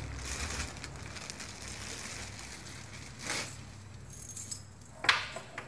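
Plastic packaging bag rustling while a coiled flexible metal shower hose is unwrapped and handled, with a short, louder handling noise about five seconds in.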